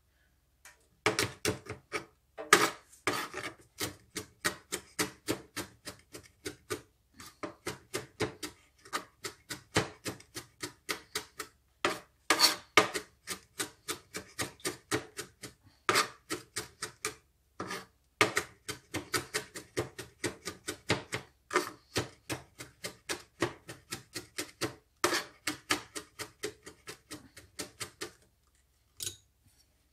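Chef's knife rapidly chopping on a plastic cutting board, mincing fresh chillies: quick runs of taps about four a second with brief pauses, stopping near the end.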